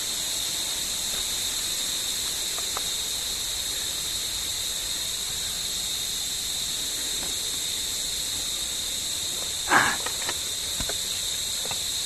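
Steady, high-pitched drone of a jungle insect chorus, unbroken throughout. One short, louder scuff about ten seconds in.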